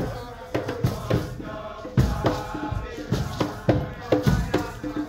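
Nyahbinghi drumming: a heavy bass drum and hand drums beating a steady rhythm of about three strokes a second, with a group chanting along.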